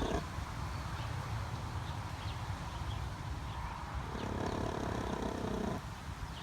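A hen making an odd, drawn-out call once, about four seconds in, lasting under two seconds, over a steady low background rumble.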